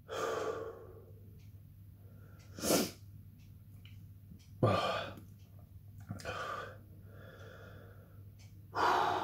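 A man breathing hard through the mouth against the burn of chugged hot sauce: five loud, noisy breaths a second or two apart, with a short, sharp, sneeze-like burst about three seconds in.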